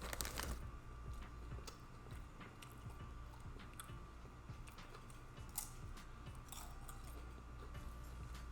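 Close-miked chewing with wet lip smacking and small scattered mouth clicks, one sharper click about five and a half seconds in, over a faint steady hum.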